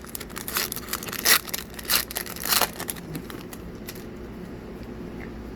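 Foil booster-pack wrapper crinkling and tearing in the hands, a string of sharp rustles over the first three seconds, after which only a steady low hum remains.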